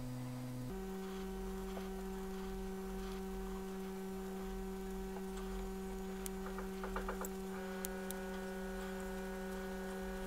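Steady electrical hum made of several held tones, which shifts in pitch about a second in and takes on extra tones later. A few faint clicks sound near the middle.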